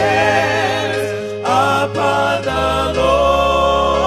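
Gospel music with singing: long sung notes held with vibrato over sustained bass notes.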